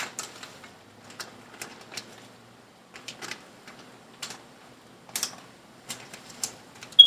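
Irregular light clicks and taps of kitchen utensils and dishes being handled while cooking, with one sharp ringing clink near the end.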